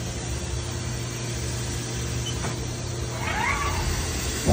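Haas ST-30SSY CNC lathe running with a steady machine hum. About three seconds in, a brief whine rises and falls in pitch, and a sharp knock comes at the end.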